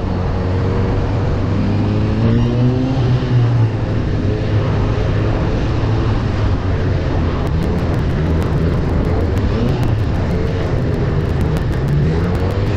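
Honda CB1000R's inline-four engine running on the move, its pitch rising about two seconds in as it accelerates and again near the end, over a steady rush of noise.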